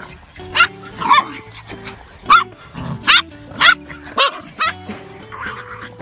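Miniature poodles barking excitedly while running, about seven short, high barks in quick succession, over background music.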